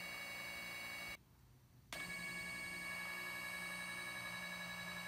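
Nema 23 stepper motors, a closed-loop hybrid stepper and a regular open-loop stepper, spinning with a steady high-pitched whine made of several even tones. The whine cuts off about a second in, for under a second, then starts again as the motors resume.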